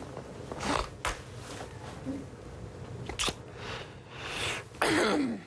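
A man's stifled laughter: short breathy bursts of held-back giggling through a hand pressed over his mouth. A little before the end it breaks out into a loud, high-pitched laugh that slides down in pitch.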